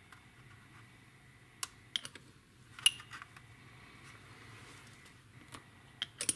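Several short, sharp plastic clicks and taps from handling and pressing together plastic model-kit wing parts, the loudest about three seconds in, over a faint low hum.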